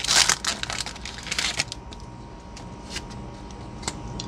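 Foil booster pack wrapper crinkling and rustling for about the first second and a half as the trading cards are pulled out of it, then quieter card handling with a few light clicks.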